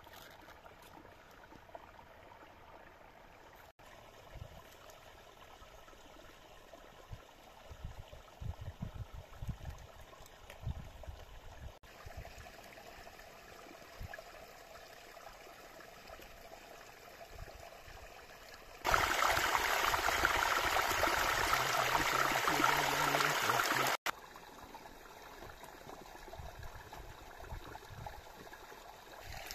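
Running water, a steady rushing with no distinct events. It changes abruptly at several cuts and is much louder for about five seconds beginning near the middle.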